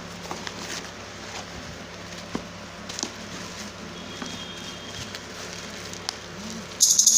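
Handling of a smartphone and its packaging during unboxing: scattered small clicks and taps, then a sudden loud, hissy rustle near the end.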